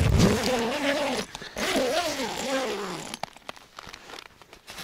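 Rustling of the ice-fishing tent's door fabric and zipper as it is pushed open, over two wavering, falling voice-like tones of about a second each. The last second and a half is quieter, with scattered light clicks.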